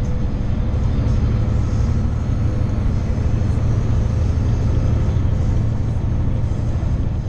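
Steady engine and road rumble heard inside a vehicle's cab while driving at highway speed.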